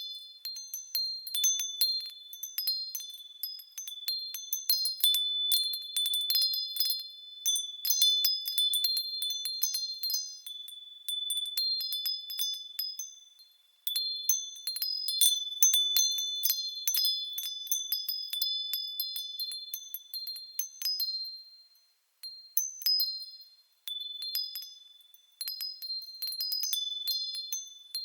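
Japanese fūrin wind chime ringing as the wind sways it, in irregular clusters of high, clear strikes on a few fixed notes. The ringing nearly dies away briefly about halfway through and twice more near three quarters of the way.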